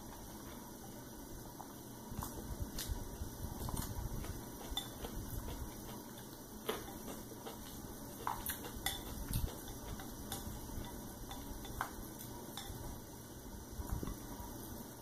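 Chopsticks clicking against a ceramic bowl as noodles are stirred and picked up, with scattered sharp clicks over the low, wet sounds of chewing noodles.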